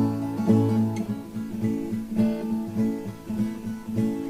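Acoustic guitar strumming chords in an instrumental interlude between sung verses of a song.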